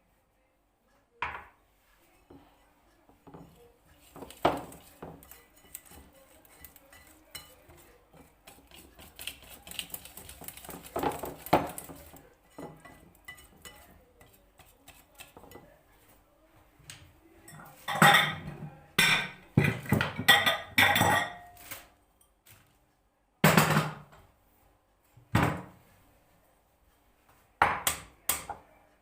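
Cutlery and dishes clinking and knocking as they are handled. Scattered light clicks at first, then a busy run of loud clatters about two-thirds of the way in, and a few more sharp knocks near the end.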